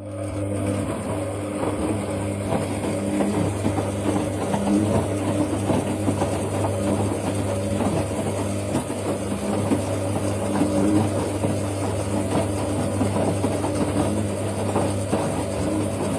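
Siemens washing machine running at a steady speed: a steady motor hum with a rattly clatter, coming in abruptly from silence.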